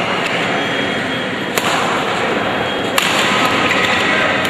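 Badminton rally: sharp smacks of rackets striking the shuttlecock, about a second and a half apart, three in all, with short shoe squeaks on the wooden court. Under them runs the steady background hubbub of the hall.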